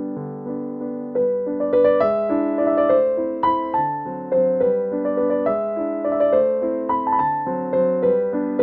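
Background piano music: a melody of struck notes, each fading away after it sounds.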